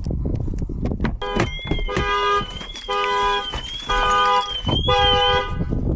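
Cadillac's car alarm going off: the horn sounds in four pulses about a second apart while a high warbling siren tone runs under them, set off as the locked car is opened without the key.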